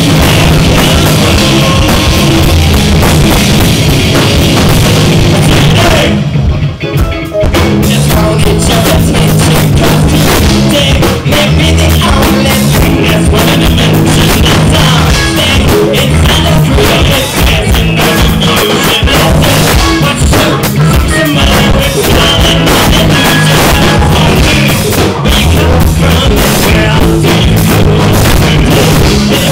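A rock band playing live and loud: distorted electric guitars, bass guitar and a pounding drum kit, with a singer into a microphone. About six seconds in the band stops for about a second, then comes crashing back in.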